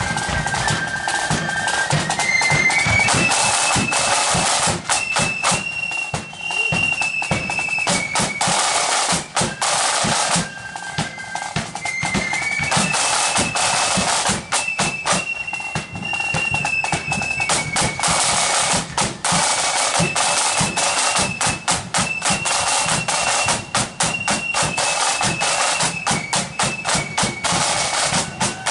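Marching flute band playing: a high flute melody over dense snare-drum rolls and bass-drum beats.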